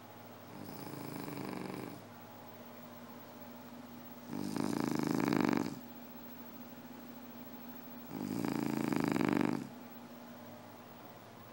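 A sleeper snoring: three long snores about four seconds apart, each lasting about a second and a half, the first softer than the other two.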